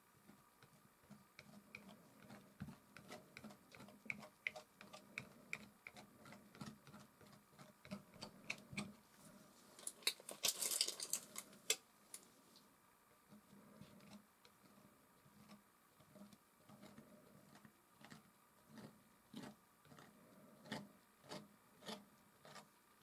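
Metal palette knife tapping and dragging oil paint across a canvas: a run of short light taps, with a longer, louder scrape about ten seconds in.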